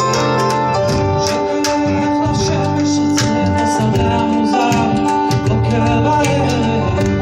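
Live band music: piano and guitars playing sustained chords over a beat of sharp percussive hits.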